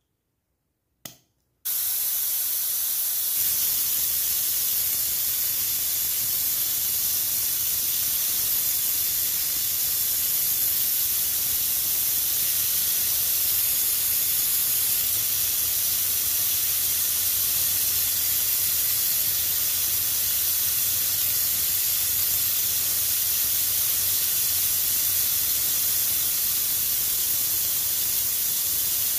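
Homemade mini paint spray gun spraying a fine mist: air hissing out through its copper-tube nozzle with a no. 2 torch tip. After a click about a second in, the hiss starts abruptly and holds steady.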